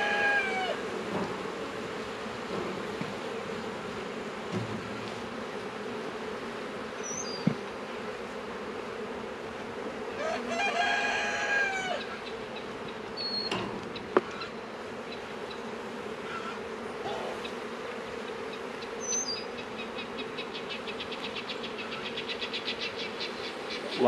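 Honeybees buzzing steadily around an opened hive. A rooster crows at the start and again about ten seconds in, and there are two sharp knocks.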